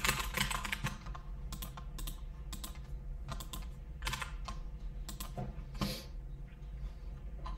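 Computer keyboard being typed on: a quick run of keystrokes for about a second, then scattered single key presses and clicks.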